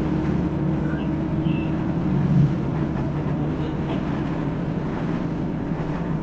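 Diesel engine of a rear-engined Hino RK8 bus running at a steady drone under way, with continuous road noise.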